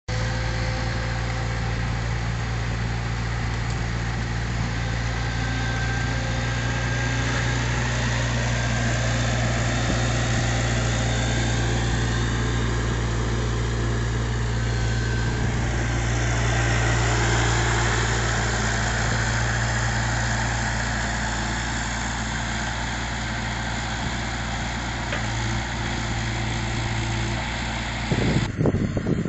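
Avant 635 compact loader's diesel engine running steadily under work, with a higher whine that rises and then falls in pitch around the middle. A short burst of louder noise comes near the end.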